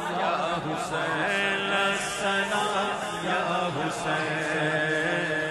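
Voices chanting a devotional salam to Imam Husayn, with long held notes sung on without a break.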